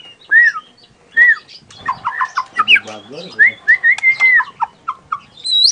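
White-rumped shama singing: a varied run of clear whistled notes, with arched slurs, quick series of short notes and one long held whistle about four seconds in. Near the end, rapid high repeated notes begin.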